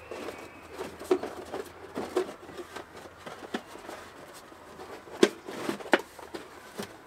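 Product packaging being handled as a touchscreen is worked back into its box: irregular rustling, scraping and light taps, with sharper knocks about a second in and twice near the end.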